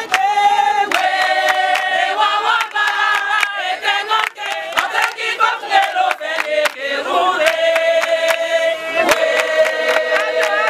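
A group of women singing a kpakpatcha song together, with hand clapping in a steady beat.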